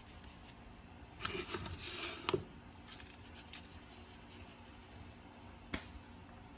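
Kitchen handling sounds: about a second of rustling and scraping with a few sharp clicks about a second in, then a single sharp click near the end.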